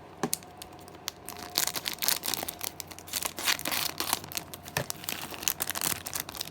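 Packaging being torn open and crinkled by hand to unwrap a small miniature piece: a run of irregular crackles and rustles that grows busy about a second and a half in.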